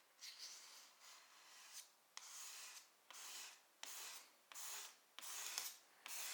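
Repeated short rubbing strokes on the wooden end grain cutting board, about eight of them, roughly one every 0.8 seconds, each a faint hiss.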